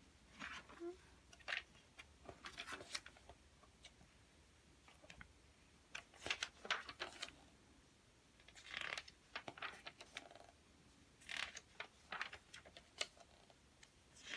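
A magazine and its packaging being handled: faint rustling and crinkling of paper in five or so short bursts with quiet gaps between them.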